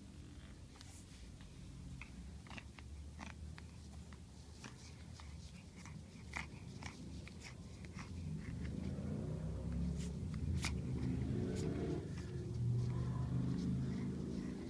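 Pug puppy biting and chewing at a plush toy, with many small clicks and rustles. About eight seconds in, a louder low, wavering puppy growl sets in and carries on through the rest.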